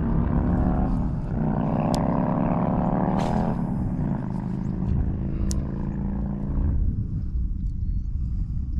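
An engine running with a steady pitch that rises slightly between about one and three seconds in, then drops out about seven seconds in, over a low rumble that continues throughout. Two faint ticks sound, about two and five and a half seconds in.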